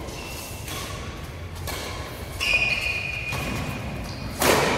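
Badminton racket strikes on a shuttlecock during a fast doubles rally, about one sharp hit a second echoing around a large hall; the loudest is a jump smash near the end. A short high squeak sounds around the middle.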